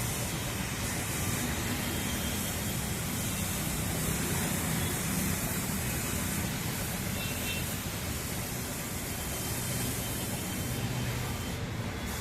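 Steady machine noise: a continuous low hum under an even hiss, with no distinct strikes or pauses.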